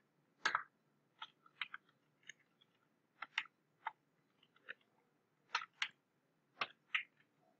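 Computer keyboard typing: about a dozen faint, sharp keystrokes at an uneven pace, some in quick pairs.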